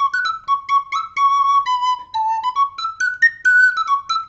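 Miniature four-hole major pentatonic flute playing a quick melody of short, separately tongued notes, climbing to its highest notes about three seconds in and then stepping back down.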